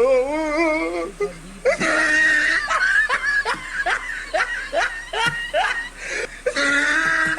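A person laughing: a wavering, held note followed by a run of short, falling giggles, about two a second.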